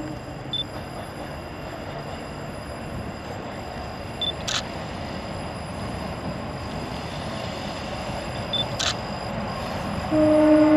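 Approaching TEM2U diesel shunting locomotive: a steady rumble that slowly grows louder, with two sharp clicks, then about ten seconds in the locomotive's horn starts with a loud steady tone.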